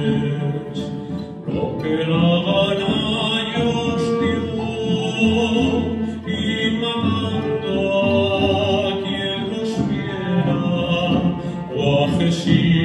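Male voice singing a slow, chant-like melody over the plucked strings of a rota, a reconstructed medieval harp-psaltery, with a chamber string orchestra.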